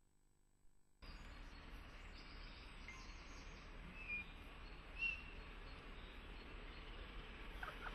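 Outdoor background noise with a steady low hum, cutting in suddenly about a second in after near silence. A few short bird chirps come about three, four and five seconds in.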